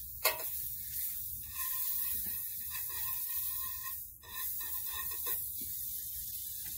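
Butter sizzling as it melts in a hot skillet on a gas burner, a steady hiss, while a knife scrapes and squeaks as it spreads the butter across the pan. A sharp click of the knife against the pan just after the start.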